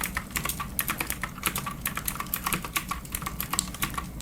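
Typing on a clicky computer keyboard: quick, irregular keystrokes, several a second.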